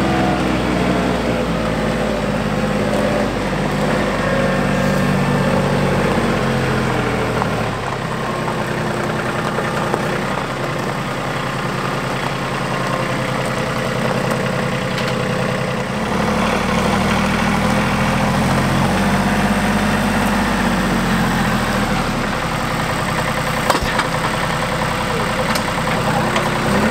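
RK 37 compact tractor's diesel engine running, its pitch falling and rising as the front-loader grapple carries a heavy red oak log onto the pile. A single sharp knock comes near the end.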